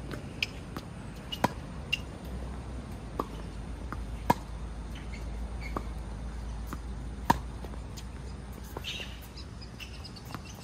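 Tennis rally: sharp pops of rackets striking the ball and of the ball bouncing, irregularly spaced, with the loudest hits about three seconds apart, over a low steady rumble.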